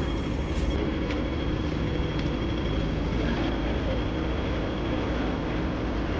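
Road traffic: the engines of passing and waiting vehicles making a steady hum that is heaviest at the low end, with a faint steady high whine over it.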